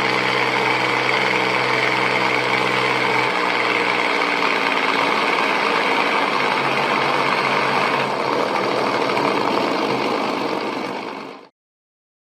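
Light aircraft engine running steadily, its low tone shifting slightly lower about three and a half seconds in; the sound fades away and stops about eleven and a half seconds in.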